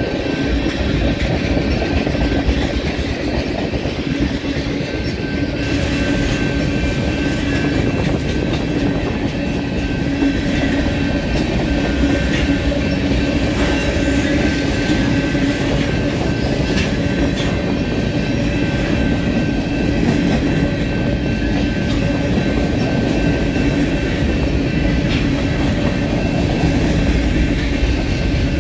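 Freight cars (mostly loaded tank cars and covered hoppers) rolling steadily past at trackside: a continuous rumble of steel wheels on rail with wheels clicking over the rail joints. A few steady ringing tones sit above the rumble.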